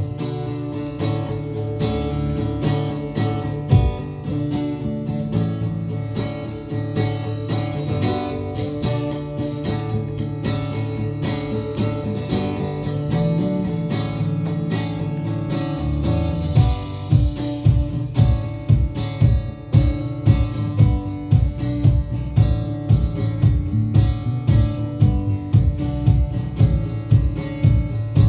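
Live band music: strummed guitar chords, with a steady low beat coming in a little over halfway through.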